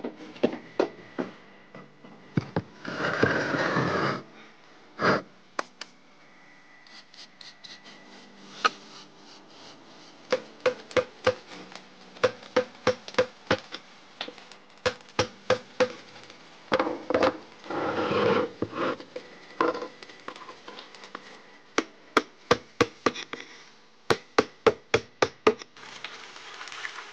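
Steel chisel chipping at the face of a stone hand mill's millstone, dressing its grinding grooves: sharp taps in runs of about two or three a second, with two longer bursts of scraping on the stone. Near the end a stiff brush starts sweeping the stone.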